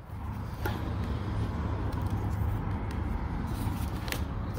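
A steady low rumble with a hiss over it, with a couple of sharp clicks, about a second in and near the end, as the plastic gauge cluster is worked loose from its mount.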